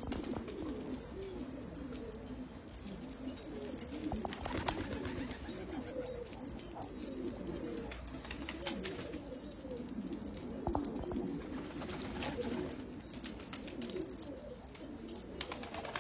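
Domestic pigeons cooing, several at once in continuous overlapping low warbles, with a few short sharp clicks among them.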